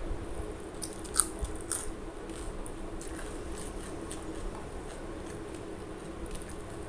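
Close-up eating sounds: fingers mixing pulao rice on a steel plate and chewing, with a few sharp clicks between one and two seconds in, over a steady low hum.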